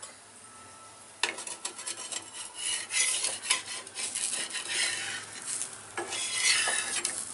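Metal spatula scraping and rasping in short, irregular strokes around the edge of an appam on a seasoned cast-iron griddle, loosening it to lift off. The scraping starts about a second in.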